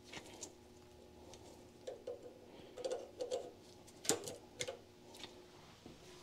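Faint, irregular metallic clicks and ticks of pliers working a cotter pin out of an oily shift rail in the transmission case of a 1927 John Deere D.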